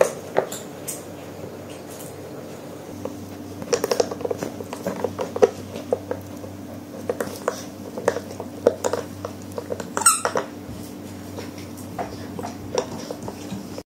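Puppy gnawing and mouthing a spiky rubber ring toy: scattered short clicks and scrapes of teeth and paws on the rubber, with one brief high squeak about ten seconds in.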